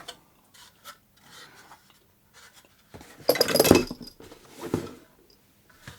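Handling noise from a keyboard carrying case being picked up and opened: a few light clicks and knocks, then a louder scraping rustle a little after the middle and a shorter one about a second later.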